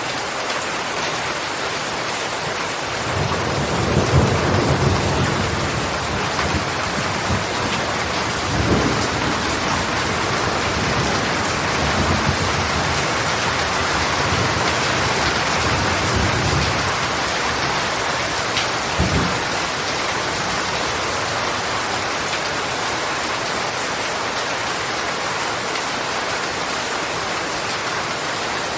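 Steady rain falling, with thunder rumbling low several times through the first two-thirds, the strongest roll a few seconds in.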